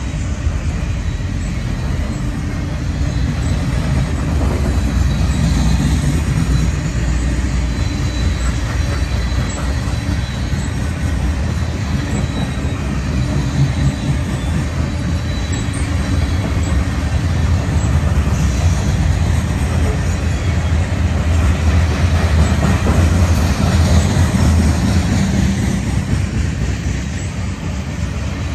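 Freight cars of a long mixed freight train rolling past: a steady, loud rumble of steel wheels on rail, with a thin high wheel squeal in the first half.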